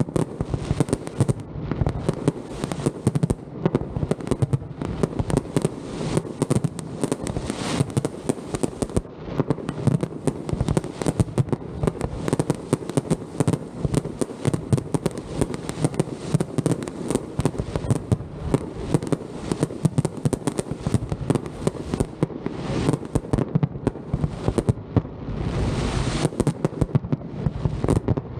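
Aerial fireworks display: a dense, continuous barrage of bangs and crackles, many per second, thickening into a denser roar near the end.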